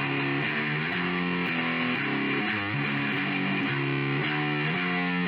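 Outro music: a distorted electric guitar playing a chord progression at a steady level.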